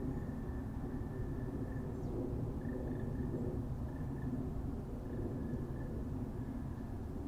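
Forest ambience: a steady low rumble, with a faint high thin tone that breaks off and returns every second or so.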